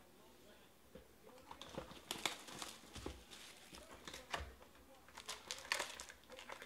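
Cardboard trading-card box being handled and opened, with irregular sharp taps, scrapes and rustles starting about a second and a half in, as the lid comes open and the foil card packs inside are touched.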